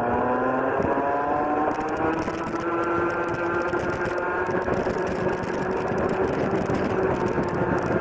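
Rotax Junior Max 125cc two-stroke kart engine at full throttle, its note climbing steadily as the kart accelerates down the straight and levelling off near the end, heard onboard with wind and tyre noise underneath.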